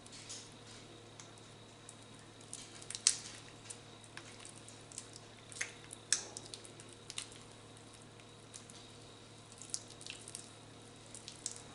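Freshly mixed, sticky wet clear-glue slime being kneaded by hand: irregular faint wet clicks and squelches as it sticks to and pulls off the fingers.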